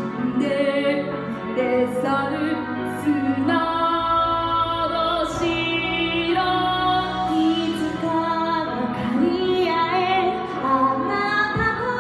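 Female solo voice singing a slow song in long held notes over instrumental accompaniment: a number from a stage musical.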